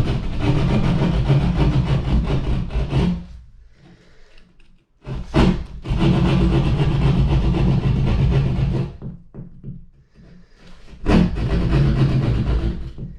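A handheld power tool running and cutting through drywall to make the hole for an electrical outlet box, in three runs of a few seconds with short pauses between.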